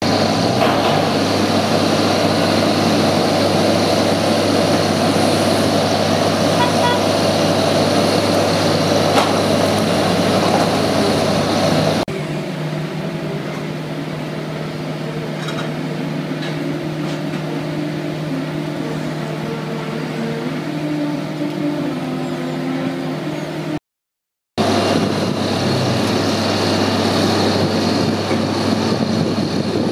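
Steady drone of airport ground equipment running at a freighter's cargo door, the engine and hydraulics of a scissor-lift cargo loader among it. The hum drops to a quieter, steadier tone about 12 seconds in, cuts out for half a second near 24 seconds, then returns at the louder level.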